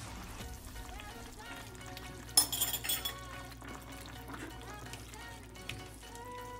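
Background music over stirring chicken in sauce in a stainless steel pot, with a brief loud clatter of the spatula and spoon against the pot a little over two seconds in.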